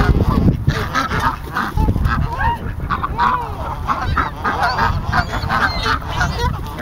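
A flock of geese honking, many short calls overlapping and repeating, over a low rumble.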